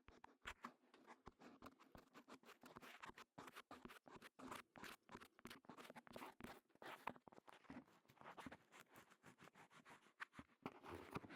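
Close, dense crackling and scratching at the ear of a KU100 binaural dummy-head microphone, from an object worked against or in the ear.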